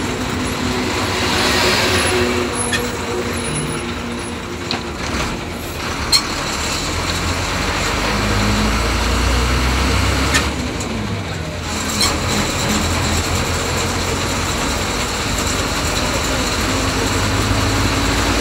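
Diesel bus engine running with road and wind noise, heard from inside the cab at highway speed, with a few short sharp knocks from the bus body. The engine pitch climbs steadily near the end as the bus accelerates.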